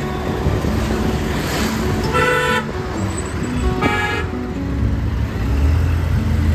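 Two short vehicle horn honks about a second and a half apart, over background music and street noise.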